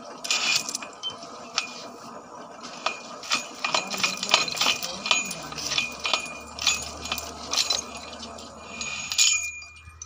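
Chain pipe wrench working a steel borehole pipe: a steady run of sharp metallic clinks and clicks from the chain and jaw ratcheting on the pipe, some followed by a short ringing.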